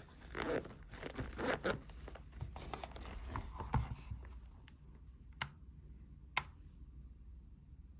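Rustling and crinkling as small cycling items are handled and packed into a saddle bag, followed by two sharp clicks about a second apart.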